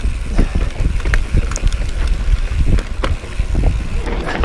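Mountain bike riding fast down a rough dirt trail, its frame and parts rattling and knocking over the bumps, with wind rushing across the microphone.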